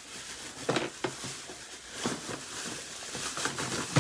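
Faint, scattered rustles and a few soft taps of handling noise.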